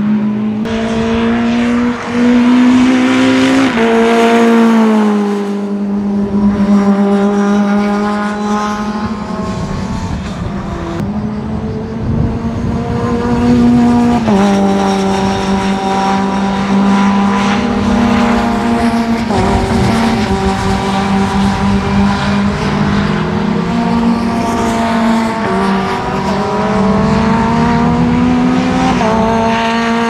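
Mitjet 2.0 race cars' Renault 2.0-litre four-cylinder engines running hard on track, the engine note climbing in pitch several times and changing abruptly between climbs as the cars accelerate and shift.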